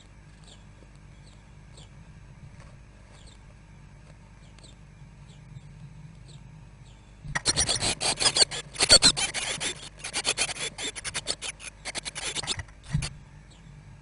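Blue tit nestlings in a nest box: faint high chirps repeating about twice a second, then, as an adult arrives to feed them, a loud scrabbling burst of begging calls and wing-fluttering for about five seconds, ending in a single thump.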